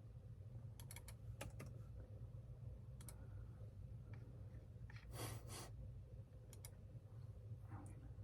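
Scattered computer keyboard and mouse clicks, a few at a time with pauses between, over a steady low hum. A short soft hiss comes a little after five seconds in.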